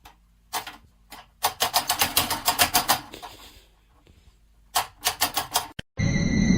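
Rapid sharp clicking taps in three bursts: a short run about half a second in, a long fast run of roughly eight clicks a second, and another run near the end. Just before the end a steady noisy hum with high whining tones cuts in abruptly.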